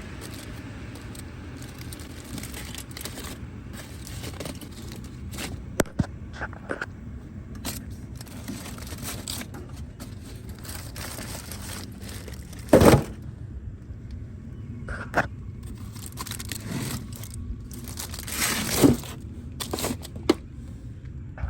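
Foil-wrapped ribs being taken off a grill: aluminium foil crinkling and scraping, with a few sharp clicks and knocks and two louder rustles, about halfway through and near the end.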